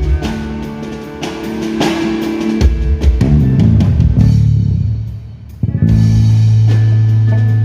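A live band playing a song: drum kit, electric guitar and bass guitar. About three seconds in there is a quick run of low bass notes, the band thins out briefly, then comes back in on a long held low note.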